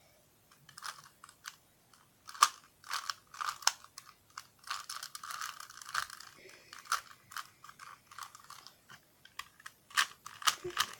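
Rubik's Cube being turned by hand through a short algorithm: its plastic layers click and clatter in quick, irregular bursts of turns with brief pauses between them.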